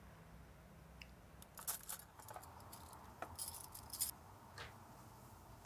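Faint clinking of dishes, glasses and cutlery on a dining table: a scattering of light, short clinks and rattles starting about a second and a half in.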